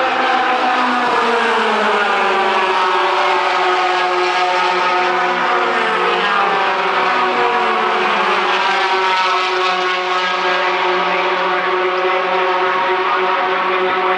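A pack of racing pickup trucks at full throttle on the track. Their engine notes drop in pitch as they go by in the first couple of seconds, then blend into a steady, loud drone of several engines.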